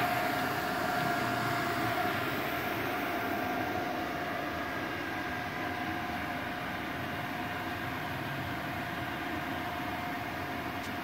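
MultiPro inverter plasma cutter just switched on, its cooling fans running with a steady whine over a whooshing hum.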